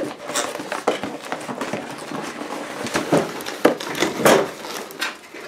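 Cardboard boxes being handled: an inner box scraping and sliding out of its outer cardboard box, with rustling and a series of irregular knocks, the loudest between about three and four and a half seconds in.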